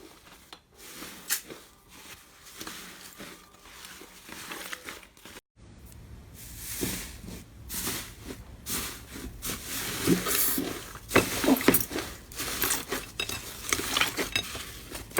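Slime being squeezed and pressed by hand: sticky crackles and small pops. It is quiet at first, then cuts to louder, denser crackling about five and a half seconds in.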